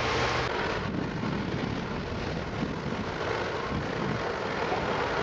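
Plasser & Theurer 08-32 Unimat 4S track tamping machine's diesel engine running steadily. A hiss over the engine drops away about a second in.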